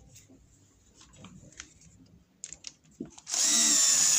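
Light clicks of small parts being handled, then about three seconds in a cordless electric screwdriver starts with a loud, steady whine as it drives one of the two screws back into a Briggs & Stratton lawnmower carburettor.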